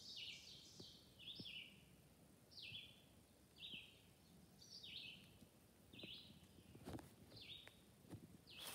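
Faint repeated high chirps from a squirrel calling, about one a second, each note falling in pitch.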